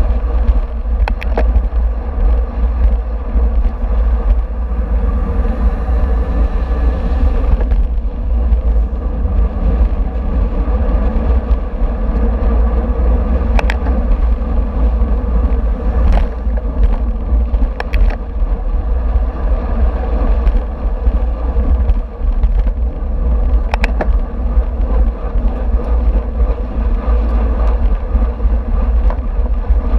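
Wind rushing over the microphone of an action camera on a racing bicycle at speed, a steady heavy rumble with tyre and road noise. A few sharp clicks come through now and then.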